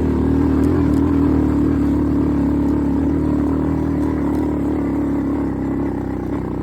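ATV engine running at high throttle, pulling up a steep hill under load, with a steady drone that eases off a little near the end.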